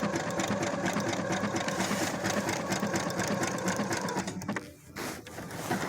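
Brother SQ9285 sewing machine running steadily, stitching a dense zigzag embroidery stitch, then stopping about four seconds in. A short burst of noise follows about a second later.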